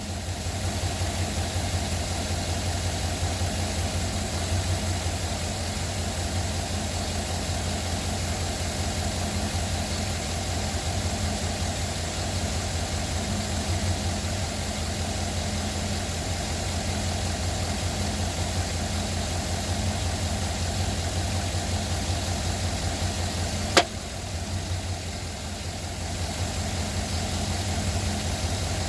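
2009 Chevrolet Silverado engine idling steadily after a cold start, with the rapid knocking that the owner reports. Once, a sharp click.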